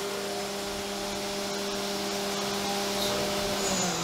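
CNC mill spindle running steadily, a hum of several tones under the hiss of flood coolant spraying, as a number 30 drill cuts a hole in 6061 aluminium. Near the end the spindle's pitch starts to fall as it slows.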